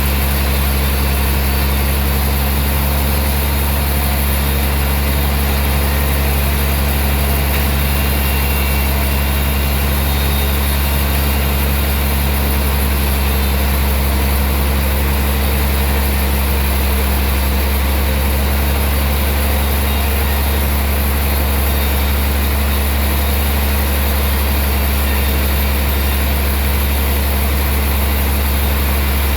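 Heavy sawmill machinery running with a steady low hum, unchanging throughout.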